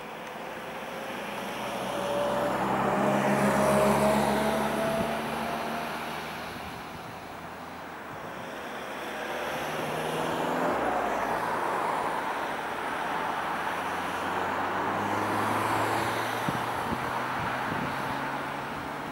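Hawker Hurricane's Rolls-Royce Merlin V12 piston engine running as the fighter flies a display pass overhead. The engine note swells to its loudest about four seconds in, fades, then builds again as the aircraft turns back. Its pitch glides slowly as it passes.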